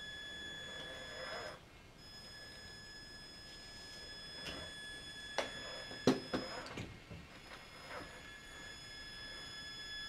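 Traxxas Summit electric RC truck crawling over a pile of split firewood: a steady high-pitched electric whine from its motor drive, which stops briefly just before two seconds in. Several sharp knocks of tyres and chassis against the logs come between about four and seven seconds in, the loudest just after six seconds.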